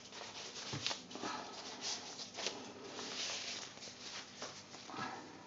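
Rustling and scraping of an icing bag being refilled with soap batter, in irregular soft strokes with a few light clicks.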